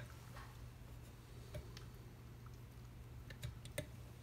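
A few light clicks and taps of hands handling the cover and nut on a blower motor's wiring box, over a faint low steady hum.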